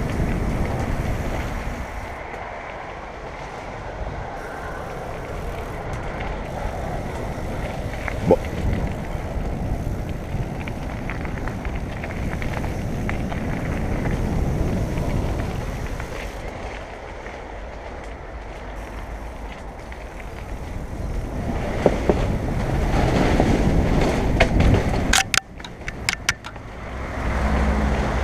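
Rushing wind on the camera microphone and rolling tyre noise from a mountain bike descending a downhill trail, swelling and easing as the speed changes. There is a short burst of sharp clattering near the end.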